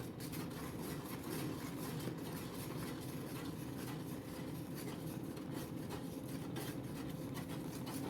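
Rice flour and jaggery syrup being stirred and mixed in a bowl, giving a continuous irregular scraping and rubbing.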